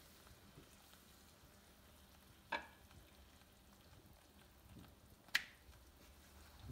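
Corn tortillas frying faintly in hot oil in a nonstick pan, with two sharp clicks of a spatula against the pan about two and a half and five and a half seconds in.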